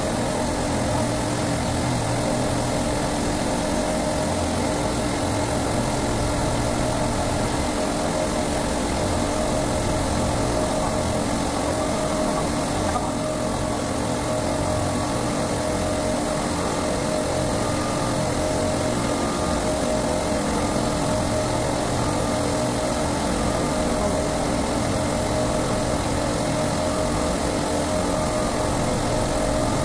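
Steady hum of running supermarket refrigeration compressors, with the hiss of an oxy-fuel torch brazing a copper joint on a replacement bypass valve.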